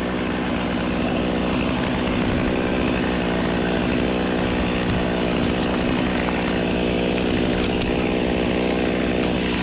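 Gas chainsaw running at a steady high speed, cutting into a palm trunk.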